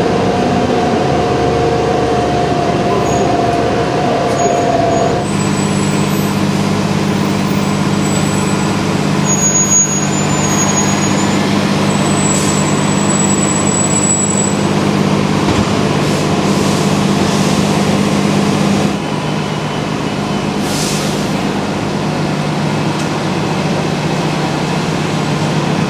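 Transit bus engine running with a steady hum, its pitch pattern shifting about five seconds in. A short hiss of air comes near the end.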